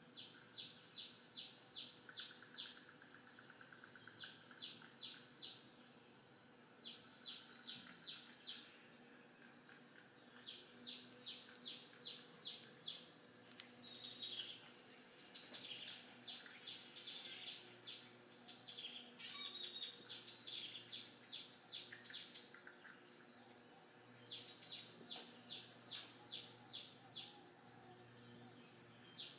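Birdsong from a nature video played on a television: a songbird repeating fast runs of high chirps, each run a second or two long, with short pauses between.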